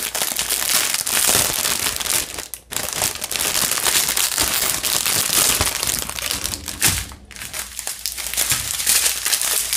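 Clear plastic bags of diamond painting drills crinkling as they are handled and the small zip bags are pulled out of the larger bag, with brief pauses about two and a half and seven seconds in.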